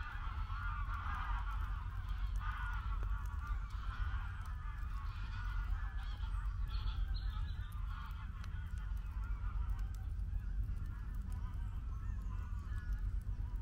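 A large flock of geese honking continuously, many overlapping calls at once, over a steady low rumble.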